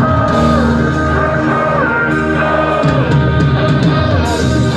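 Live pop-rap song played loud through a concert PA, with singing over held keyboard-like melody notes and a steady bass line.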